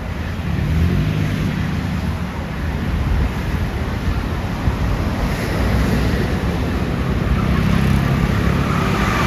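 Road traffic passing, with the low rumble of heavy vehicle engines. It swells twice, once about half a second in and again near the end.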